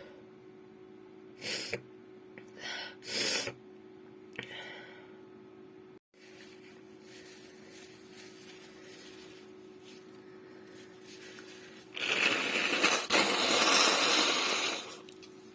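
A woman's breathy sniffs and breaths, a few short ones in the first five seconds. Near the end there is a loud, rough, noisy stretch of about three seconds in two parts, over a faint steady hum.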